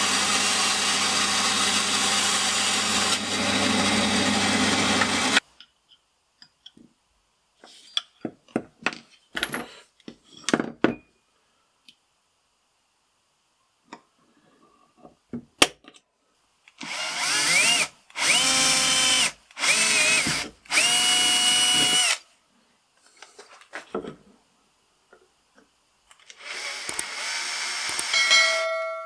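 A band saw cutting a wooden handle, stopping abruptly about five seconds in. Small clicks and taps of parts being handled follow. Then a cordless drill runs in three short bursts, each starting with a rising whine, and a longer run near the end, as it works into the handle's metal end cap.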